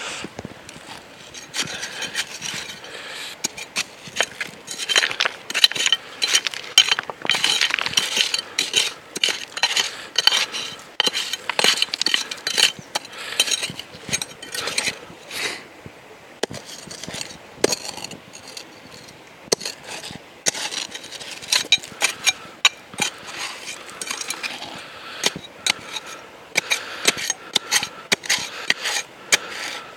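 Stones and gravel clinking and scraping as they are dug out and moved about in a river bed, a steady run of small irregular knocks and clinks, busiest between about five and twelve seconds in.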